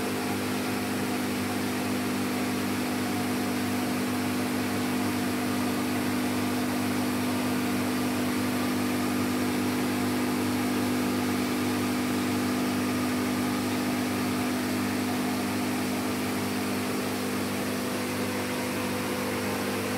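Steady electric hum with a constant hiss, typical of an aquarium air pump running to drive a sponge filter.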